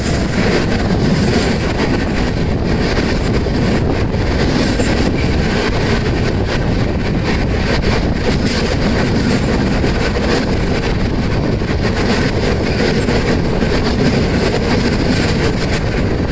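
An express train passing at speed on the adjacent track, close alongside a moving train. It makes a loud, steady rush of air with a rapid clatter of coach wheels over the rail joints, heard from the open door of the moving coach.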